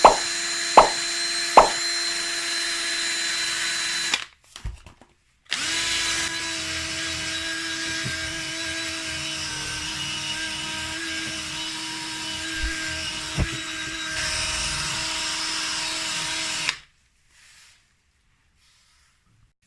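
Electric drill spinning a buffing wheel against a steel exhaust tailpipe, its motor running at a steady pitch with three sharp knocks in the first two seconds. It stops about four seconds in, starts again a second and a half later, and runs until near the end, when it cuts off.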